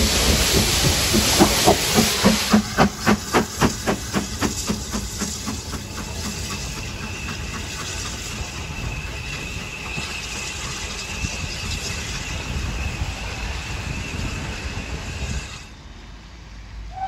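Steam locomotive pulling away beneath, with loud steam hiss at first. Then its exhaust beats at about five a second fade as it recedes, leaving a steady hiss that drops away suddenly near the end.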